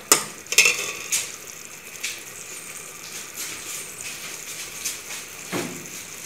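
Metal ladle clinking against a metal pot, a few sharp knocks in the first second or so, then a faint steady sizzle from the cooked ají amarillo aderezo, with one more knock near the end.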